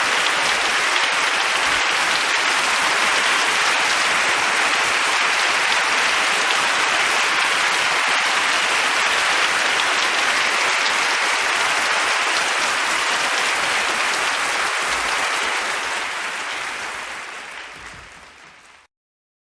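Crowd applause, many people clapping in a dense, even patter. It fades out over the last few seconds and stops.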